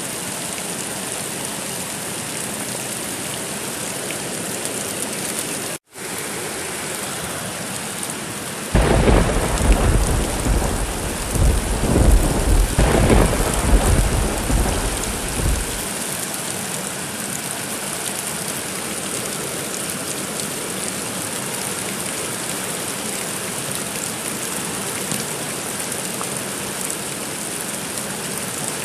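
Steady rain hiss with a long rolling peal of thunder that starts about nine seconds in, swells twice and dies away over about seven seconds. The sound cuts out for an instant a few seconds before the thunder.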